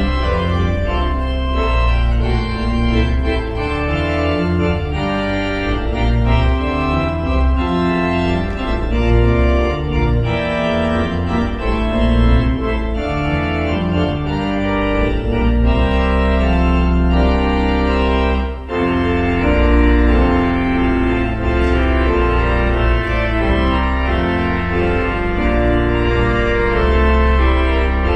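Organ playing slow, sustained chords over deep held bass notes. The chords change every second or two, with a brief break between phrases about two-thirds of the way through.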